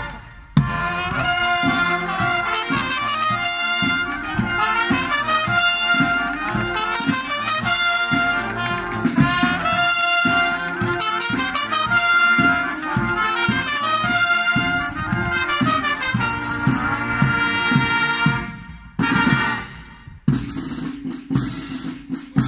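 Marching wind band's brass section playing a tune in unison, with a regular low beat under it. The playing breaks off near the end.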